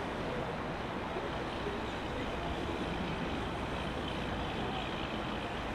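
Steady rumble of a motor yacht's engine running under way, mixed with the rush of its wake on the water.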